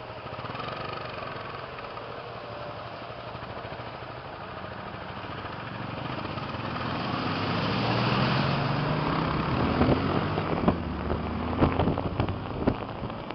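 Vehicle engine and road noise. In the second half the engine's pitch rises steadily as it accelerates, with a run of sharp pops near the end.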